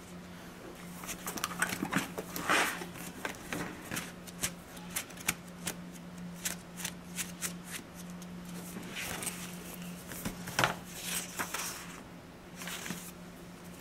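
Pages of a paper sticker book being handled and flipped through: a run of light paper rustles and flicks, over a faint steady hum.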